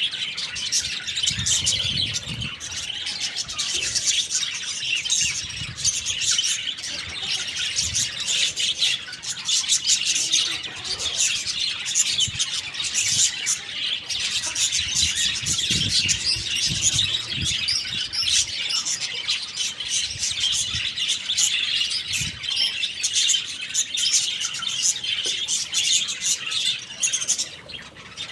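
Young chickens chirping and squawking without pause while they feed, with low dull knocks now and then.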